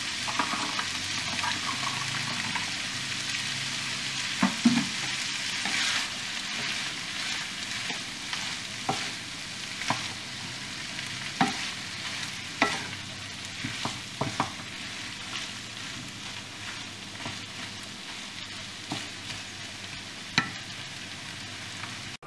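Buffalo meat, onion rings and vegetables sizzling in a frying pan, stirred with a wooden spatula. From about four seconds in, the spatula's scattered knocks and scrapes against the pan stand out over the steady sizzle.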